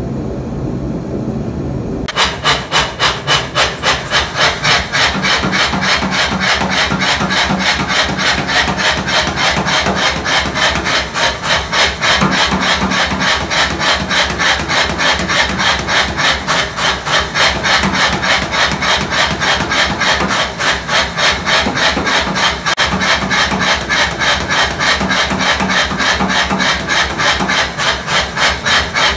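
Power hammer running, striking a bar of red-hot 1-inch square steel held in tongs with rapid, evenly spaced blows; it starts about two seconds in.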